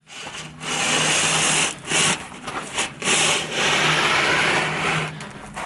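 Long scraping and rubbing as a person drags himself out of a cramped crawl space, body and clothing sliding across the floor in several pushes of a second or two each.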